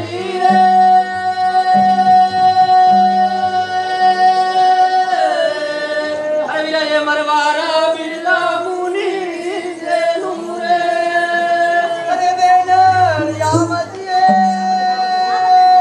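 Gavari folk singing: long held, high notes that bend and slide between pitches, with low drum strokes repeating about once a second in parts.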